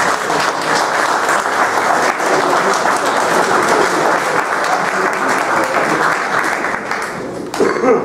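Small audience applauding. The clapping thins out near the end.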